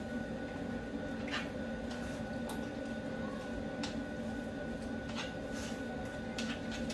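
Hands turning and rubbing seasoned fish fillets on a cutting board: faint, scattered short handling noises over a steady background hum.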